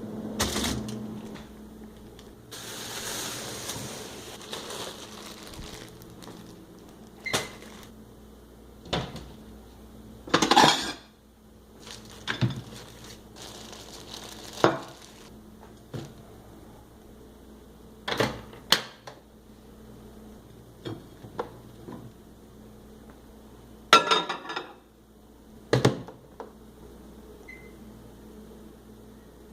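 Kitchen handling sounds of a plate and dishes: a dozen or so scattered clatters and knocks, and a stretch of rustling a few seconds in, over a steady hum.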